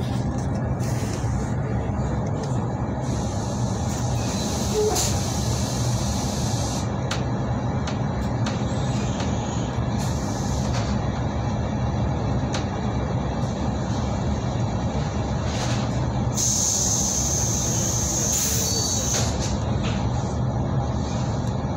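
Passenger train running, heard from inside the carriage: a steady low rumble of the wheels on the track, with a few brief hissing stretches, the longest about two-thirds of the way through.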